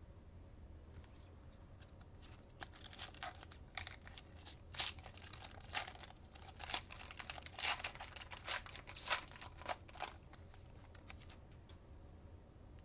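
A foil Panini Chronicles trading-card pack being torn open and crinkled by hand: a run of sharp crackling and tearing from a couple of seconds in until about ten seconds in.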